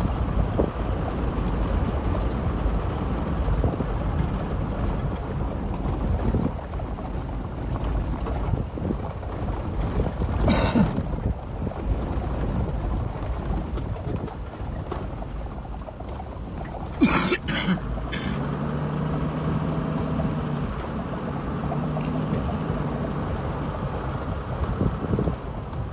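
Safari vehicle driving across rough grassland: a steady low engine and road rumble with wind buffeting the microphone. Brief knocks or jolts stand out twice, about ten and seventeen seconds in, and a steadier low hum follows.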